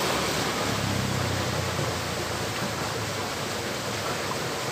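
Steady rushing of flowing stream water, with a brief low hum about a second in.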